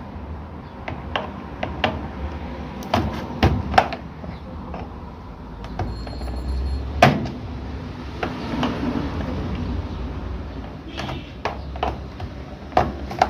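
Scattered clicks and knocks of plastic and metal as a washing machine's casing and screws are handled during disassembly. The sharpest knock comes about seven seconds in, over a low steady hum.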